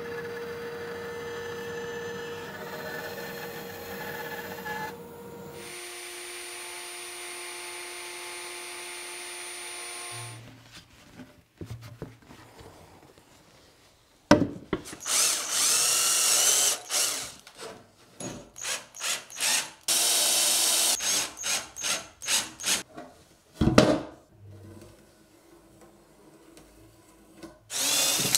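A bandsaw running steadily for the first several seconds, then a different steady machine hum. From about halfway, a cordless drill-driver whirs in many short bursts, driving screws into wood, with knocks between the bursts.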